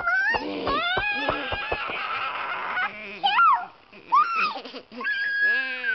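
Young girls' voices making wordless vocal sound effects: a run of high gliding squeals and whoops that rise and fall, ending in one long held note.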